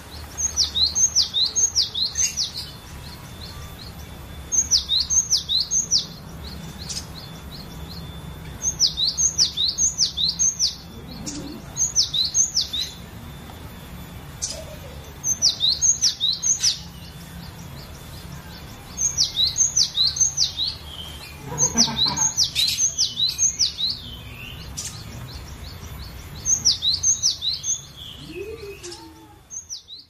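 Cinereous tit (glatik batu) singing: phrases of three to five quick, high whistled notes, each dropping sharply in pitch, repeated every few seconds.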